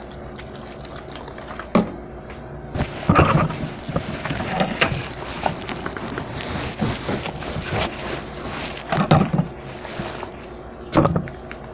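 Plastic parcel wrapping rustling and crinkling as it is wiped down with an alcohol-dampened cloth, starting about three seconds in, with a few louder handling bumps.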